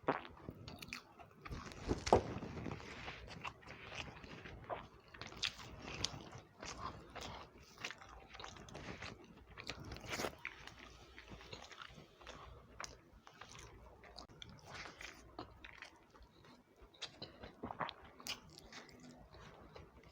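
A person chewing and eating egg curry and upma, with irregular short mouth clicks and smacks, the loudest about two seconds in.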